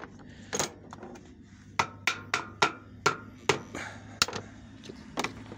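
Truck cab air-conditioning filter being knocked against a hard surface to shake the dust out of it: about ten sharp, irregular knocks over a steady low hum.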